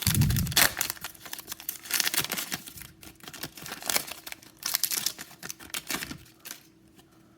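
Plastic wrapping of a baseball trading-card blaster box and its packs being torn open and crinkled by hand, in irregular bursts that die away near the end.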